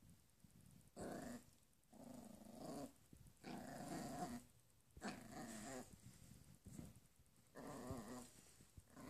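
Small puppy growling as it tugs on a sock in play, a string of short growls about a second apart.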